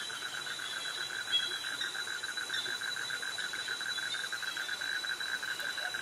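Cicadas and crickets calling in a tropical mangrove forest: a fast, even pulsing call over a continuous high-pitched whine.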